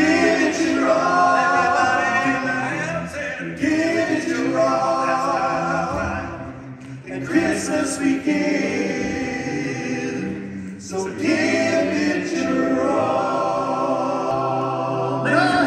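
Male a cappella vocal group singing in harmony, in phrases with short breaks about six and eleven seconds in.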